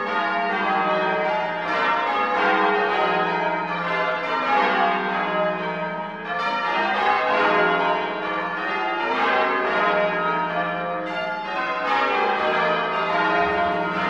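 Full-circle tower bells change ringing: the bells strike one after another in a steady stream, their tones overlapping and ringing on.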